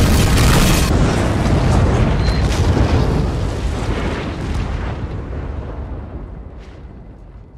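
Large explosions in a film soundtrack: a heavy, rumbling blast with a few sharp cracks in it, loud at first and fading away steadily over several seconds.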